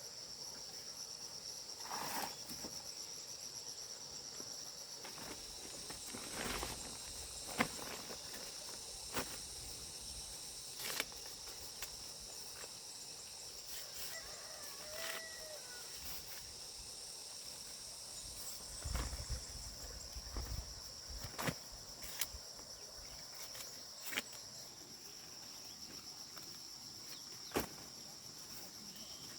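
A steady, high-pitched insect chorus with a fast pulsing trill, over which come scattered sharp knocks and a few dull thuds about two-thirds of the way through.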